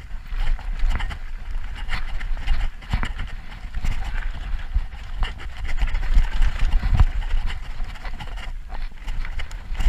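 Mountain bike riding fast down a dirt forest trail, heard from an on-board camera: steady wind rumble on the microphone, tyres crunching over dirt and stones, and a string of knocks and rattles from the bike over rough ground, the sharpest about seven seconds in.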